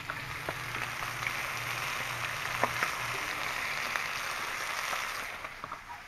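Slices of SPAM sizzling in a hot skillet: a steady frying hiss with scattered sharp crackles and pops. It grows fainter about five seconds in.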